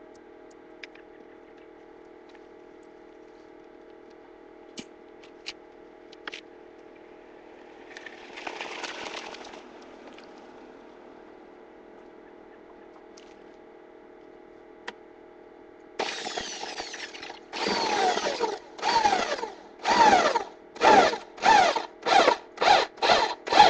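Power drill run in short trigger pulls, the motor's whine falling in pitch within each pull. After one brief run about eight seconds in, a series of pulls starts about two-thirds of the way through and comes quicker and shorter toward the end, over a steady low hum.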